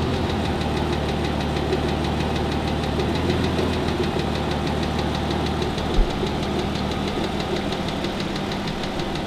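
Aston Martin DB9's V12 engine running steadily with a fast, even tick, and one short low thump about six seconds in. The tick comes from worn connecting-rod small end bushes, which leave the piston pins loose.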